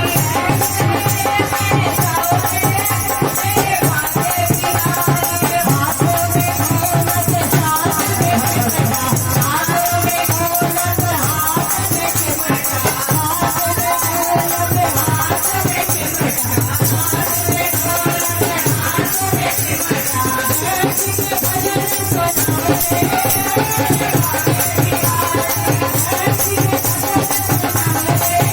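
Krishna bhajan music: a melody over dense, fast percussion with a shaker-like rattle, running at a steady loudness.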